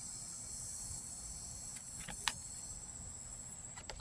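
Crickets trilling in a steady, high-pitched chorus, with two faint clicks about two seconds in.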